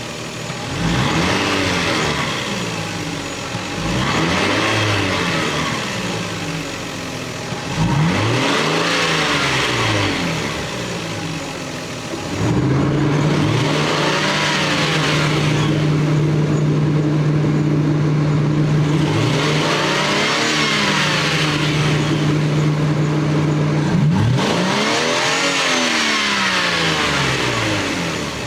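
Stock Lexus GS300's 3.0-litre straight-six (2JZ-GE) revved up and falling back about six times, with a steady hum through the middle stretch.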